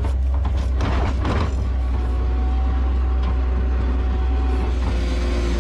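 New Holland L150 skid steer's diesel engine running steadily under a deep low rumble, with a brief rasping noise about a second in.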